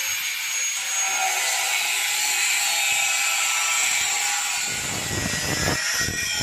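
Handheld electric angle grinder running at full speed, cutting through thin rusty sheet steel with a steady high whine and hiss. About three-quarters of the way through, the sound turns rougher and uneven as the grinder bites into a rusted motorcycle body shell.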